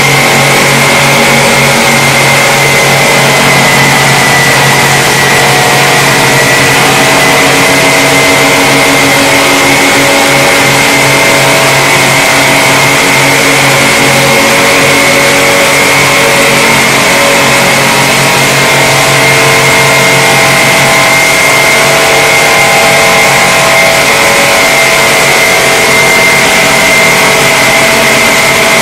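Automatic tank polishing machine's abrasive belt heads grinding along a metal tank shell: a loud, steady grinding hiss with a high whine over motor hum.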